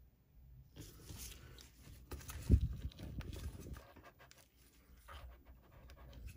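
Handling noise at the sewing machine's open hook area: irregular soft scrapes and knocks, with one loud low knock about two and a half seconds in.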